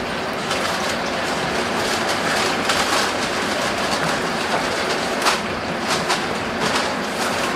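Steady hissing and sizzling of a hot restaurant griddle station, with a few light clicks as the buns are handled.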